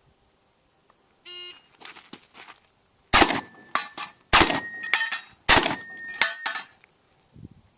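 A shot-timer beep, then three shotgun shots a little over a second apart, with clacks of the action being cycled between them. The second and third shots are each followed by a ringing steel target hit.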